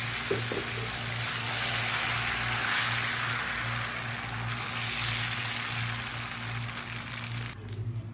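Rava dosa batter sizzling steadily on a hot dosa griddle as it is ladled on and spread in circles; the sizzle stops abruptly near the end.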